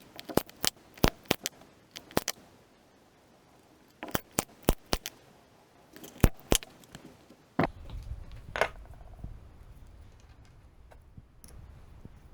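Sharp, short clicks in three quick runs, about a dozen in the first few seconds. A low rumble of handling noise starts about two-thirds of the way in.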